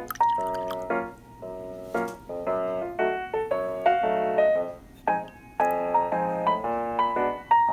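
Background music: a light piano tune played as a steady run of short struck notes.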